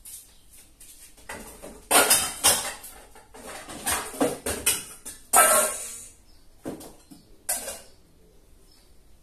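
Pots and dishes clattering as they are handled and put away in a kitchen cupboard: a run of knocks and clinks, the loudest about five seconds in with a short metallic ring.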